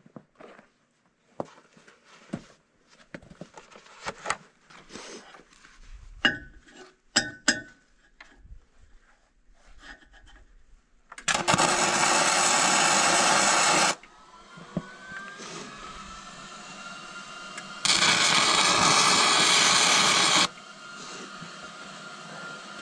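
MIG welding arc crackling twice, each burn about three seconds long, as short square-steel grouser bars are welded onto a dozer track's cold steel cleats. Before the welds come scattered clicks and knocks of the gun and gear being handled.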